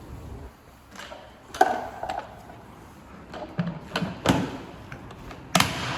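A series of sharp knocks and clicks, about six in all, with the loudest shortly after the start and near the end.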